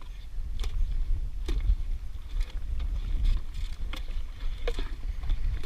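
Water lapping and knocking against a kayak hull, a few light irregular knocks, over a steady low wind rumble on the microphone.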